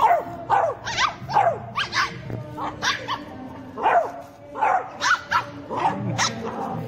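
Beagle puppy play-barking at a smaller puppy: over a dozen short, high barks falling in pitch, about two a second, with a short break about four seconds in.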